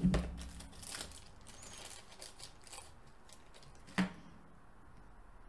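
Plastic parts bag crinkling and rustling as the kit's rubber tyres are taken out, dying away after about three seconds, with one sharp click about four seconds in.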